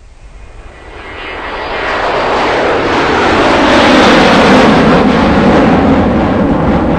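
Loud, steady rushing roar of a 2008 Suzuki Swift LXi at speed, heard from inside the cabin: wind and road noise over the engine. It grows louder over the first few seconds, then holds.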